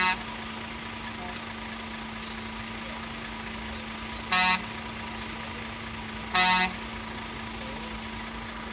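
Truck air horn sounding short blasts: a brief one at the very start, another about four and a half seconds in, and a slightly longer one about six and a half seconds in, over the steady drone of idling truck engines.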